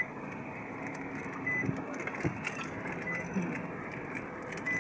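A van driving slowly over a rough, bumpy road, heard from inside the cab: steady engine and road noise with loose rattles and knocks. A short high beep repeats about every second and a half.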